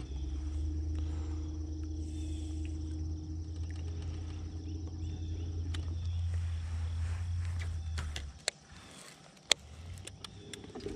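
Bow-mounted electric trolling motor humming steadily, cutting off suddenly about eight seconds in. Then a few sharp clicks as the baitcasting reel and line are handled.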